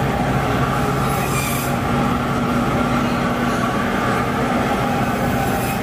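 Steady rumbling ride noise of a moving vehicle, with several held hum tones over it and no break.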